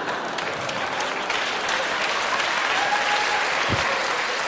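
Large audience applauding, steady and sustained.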